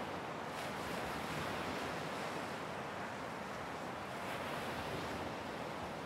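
Ocean surf washing onto a beach, a steady, continuous rush of waves.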